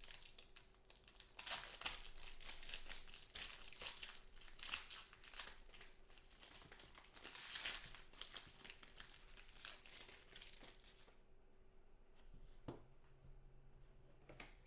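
Plastic-foil trading-card pack wrapper being torn open and crinkled by hand, a dense run of crackling that stops about eleven seconds in. After that come a few faint taps of cards being handled.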